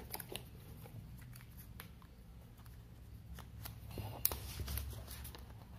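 Soft handling noises of a smartphone in its plastic protective wrap being turned over in the hands: faint scattered clicks and rustles, with one sharper click about four seconds in.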